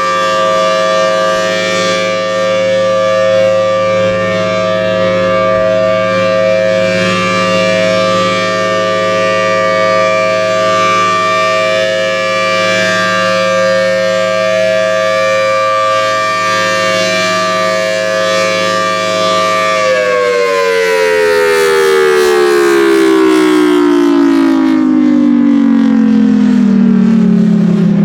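Federal Signal Thunderbolt 1000T outdoor warning siren sounding a loud, steady tone as the tornado-drill alert signal. About two-thirds of the way in, the siren begins winding down, its pitch falling steadily.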